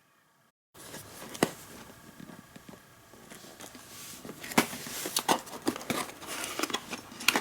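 Packaging being handled while the amplifier's box is opened: rustling and crinkling with scattered sharp clicks and knocks, getting busier and louder through the second half.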